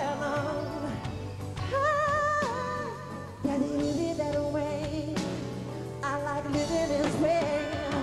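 Live concert recording of a pop ballad: a high male lead voice sings held notes with vibrato over steady synthesizer chords and the band.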